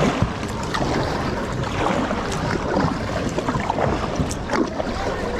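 Water lapping and splashing around a kayak, with wind buffeting the microphone and scattered small knocks and drips.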